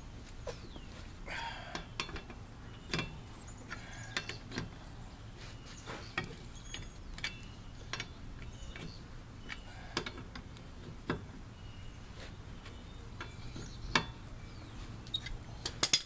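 Scattered metallic clicks and clanks of a socket and breaker bar on a car's lug nuts as they are broken loose one by one, a few strikes ringing briefly.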